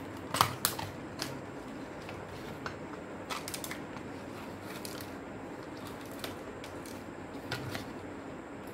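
Plastic clicks and taps from a portable CD player's casing and parts being prised apart and handled: two sharp clicks about half a second in, a small cluster of clicks a little past three seconds, then scattered single clicks, over a steady background hiss.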